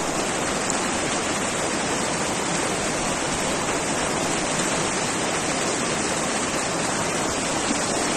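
Fast, shallow mountain river rushing over rocks, a steady loud rush of white water.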